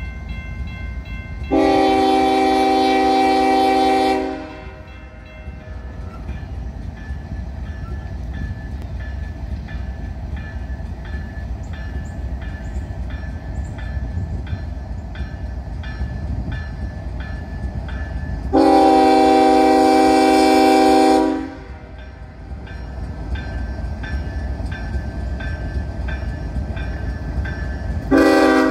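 Norfolk Southern diesel freight locomotive's multi-chime air horn sounding two long blasts, then a short blast starting near the end, the grade-crossing warning of an approaching train. Under it a crossing-signal bell rings steadily, and the low rumble of the oncoming train runs through.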